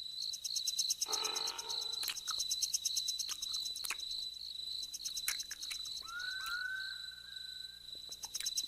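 A steady, high, pulsing trill of calling insects and frogs, with a short rustling burst about a second in and two brief whistled notes about six seconds in.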